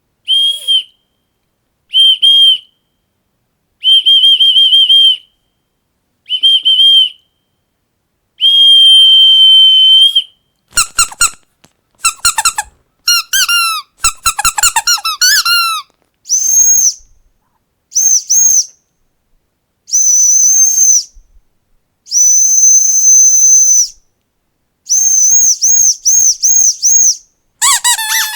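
Whistle blasts, five at a lower pitch, the last one long, then a quick run of squeaky-toy squeaks falling in pitch, then a higher-pitched whistle in several longer blasts and a fast series of short toots. Squeaks start again at the very end.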